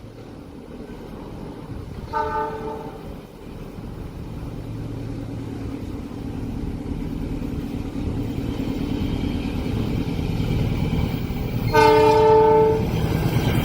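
Train approaching with its horn sounding: a short horn blast about two seconds in, then the rumble of the train growing steadily louder, and a longer horn blast near the end, the loudest part.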